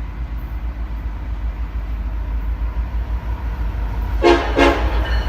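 BNSF locomotive air horn sounding two short blasts in quick succession near the end, over a steady low rumble.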